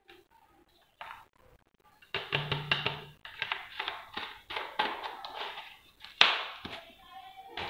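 Plastic being handled: a run of irregular taps, clicks and rustles that starts about two seconds in, with one louder clack a little after six seconds.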